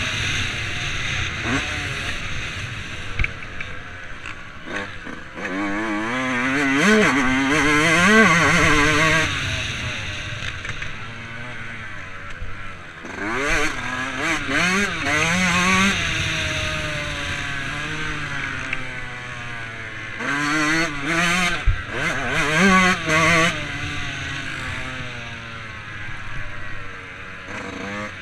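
Dirt bike engine revving up and down as the rider works the throttle around a motocross track, pitch climbing and falling through the gears in three hard surges, heard from the rider's helmet.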